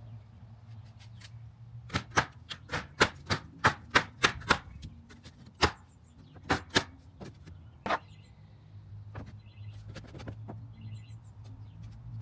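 Hammer driving nails into a wooden fence board: a quick run of about ten sharp blows, then a few single blows further apart.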